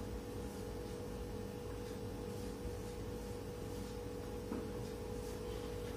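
A steady, faint hum holds throughout, with a few soft scrapes of a marker pen writing on a whiteboard.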